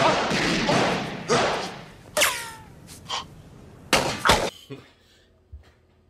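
Film-clip soundtrack: a dense burst of noise dying away over the first second and a half, a short sound falling in pitch about two seconds in, then two loud thuds in quick succession about four seconds in.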